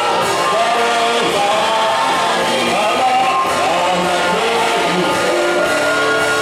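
Worship music with a group of voices singing over instruments, steady and loud.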